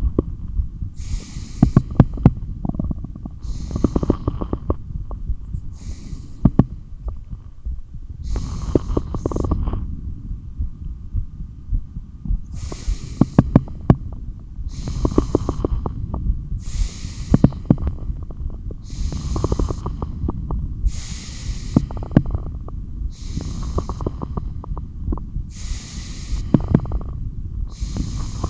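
Heartbeat and breathing heard through a stethoscope: a steady pounding heartbeat under about a dozen quick breaths, roughly two seconds apart, with a longer gap near the middle.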